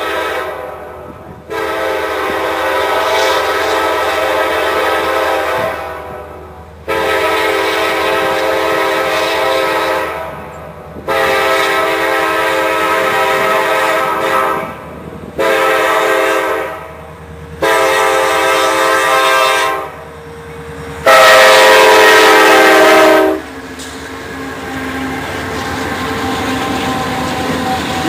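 Diesel freight locomotive's multi-tone air horn sounding a series of blasts, mostly long with one short, louder as the train nears, the last blast the loudest. Near the end the horn stops and the steady rumble and wheel clatter of covered hopper cars rolling past takes over.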